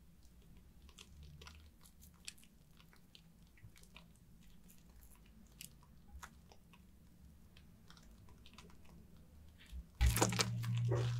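Faint scattered crackles and small wet clicks of soaked soap lather. About ten seconds in, water suddenly starts running much louder, with a steady low hum under it.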